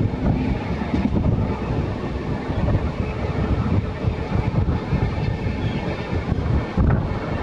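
Running noise of an Interregio passenger train rolling through station pointwork: a steady rumble of wheels on rails, with an occasional knock as the wheels cross the track.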